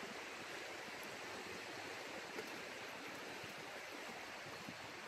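Faint, steady rush of a river flowing.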